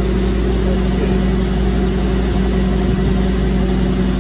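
Steady, unchanging low hum of an engine idling.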